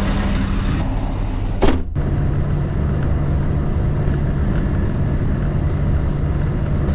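Scania 730 V8 diesel truck engine idling with a steady low rumble and hum. A single sharp knock comes just under two seconds in.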